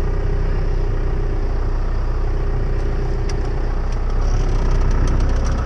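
Old pickup truck's engine running under way, heard from inside the cab, getting a little louder about four seconds in as it pulls.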